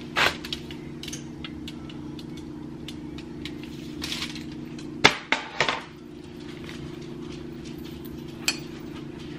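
Kitchen handling noises: a foil-lined metal baking sheet and metal cookie cutters knocking and clinking a few times, loudest about five seconds in, over a steady low hum.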